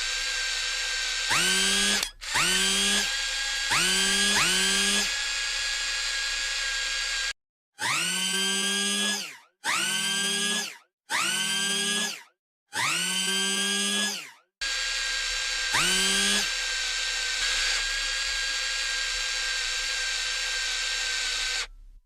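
Small electric motor of a toy excavator whirring, spinning up again and again. Each start rises quickly in pitch, then holds a steady whine for a second or so. A steady hum runs in between, and several starts are cut off abruptly.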